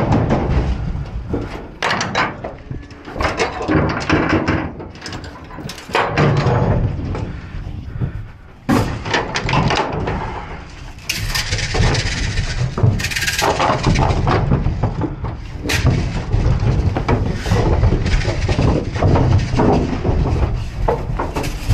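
Metal gates, latch and chain banging and clanking inside an aluminium cattle trailer, with cattle moving about on the trailer floor. A run of irregular knocks and bangs, with a longer scraping stretch a little past the middle.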